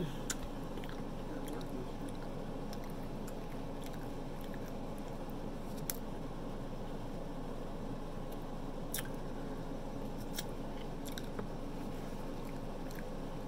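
A person chewing stuffed-crust pizza close to the microphone, with scattered soft clicks and mouth smacks over a steady background hiss.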